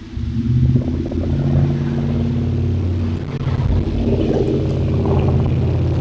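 Motor vehicle engine running with a steady low drone that comes in suddenly and loudly at the start.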